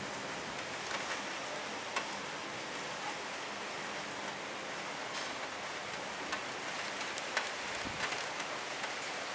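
Steady hiss of heavy rain in a thunderstorm, with a few sharp ticks scattered through it.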